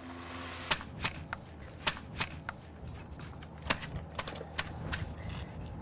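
Paper cartridge for homemade dynamite being handled and filled by hand: the rolled paper crinkles with irregular sharp clicks and rustles, after a soft hiss in the first second.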